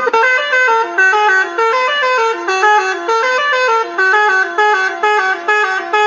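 Telolet bus horn playing a fast tune: a quick run of horn notes stepping up and down in pitch, several notes a second.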